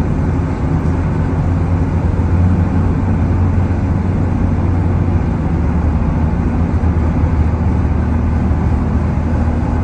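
A car's steady road and engine noise heard from inside the cabin while driving through a road tunnel: an even low rumble with a constant low hum under it.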